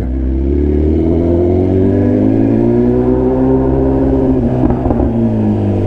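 BMW S1000RR's inline-four engine pulling the bike along at low revs. Its pitch rises slowly for about three seconds, then eases back down.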